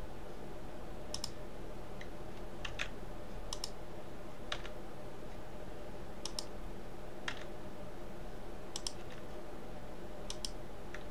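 Computer keyboard keys and mouse buttons clicking: about a dozen short, sharp clicks at uneven intervals, many in quick pairs, over a steady low hum.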